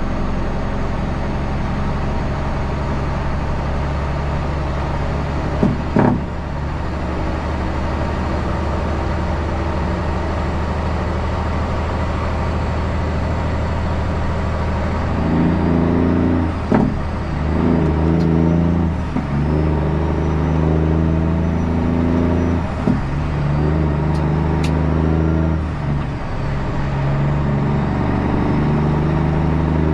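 Heavy truck engine running steadily with a low drone. In the second half, low pitched tones that shift in steps every second or two join it.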